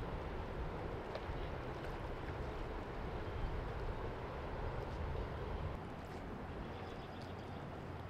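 Steady rushing of a high, fast-flowing river, with a low uneven rumble beneath.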